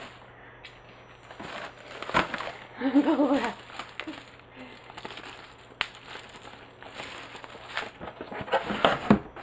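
Tissue paper and plastic packing wrap rustling and crinkling as they are handled and lifted out of a box, in uneven bursts, loudest about two seconds in and again near the end. A brief wordless hum of a voice about three seconds in.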